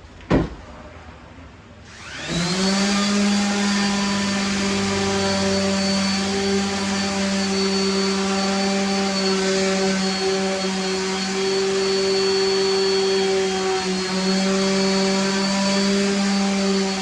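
A sharp knock, then about two seconds in an electric motor starts up and runs steadily with a whine, pitch holding nearly constant.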